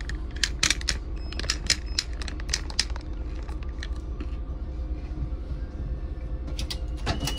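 City bus engine idling with a steady low rumble, under irregular sharp clicks and rattles, several a second for the first three seconds, sparser after, and a cluster near the end.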